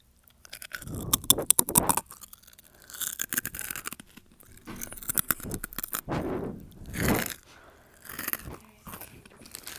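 Chex Mix crunched and chewed right up against a wired earbud's inline microphone, a close, uneven run of crunches, clicks and scrapes.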